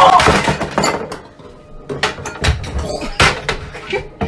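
A run of sharp knocks and clattering bangs, spaced irregularly.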